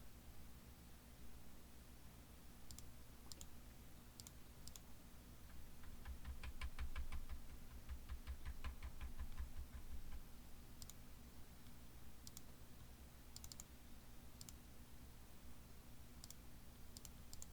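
Faint clicking from a computer keyboard and mouse: scattered single clicks, with a quicker run of clicks and soft thumps for a few seconds in the middle.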